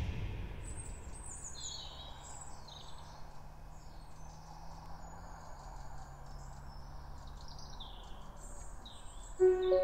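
Faint birdsong: scattered short chirps and calls over a quiet natural background with a low steady hum. A drum hit dies away at the start, and music comes back in near the end.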